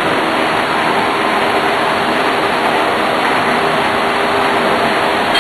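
Large wall-mounted gym fans running: a steady, loud rushing noise with a faint hum.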